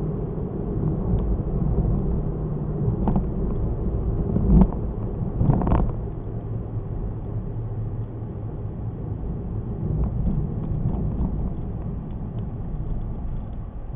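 Car driving, heard from a dashcam: a steady low rumble of engine and road noise, with a few short knocks and bumps between about three and six seconds in.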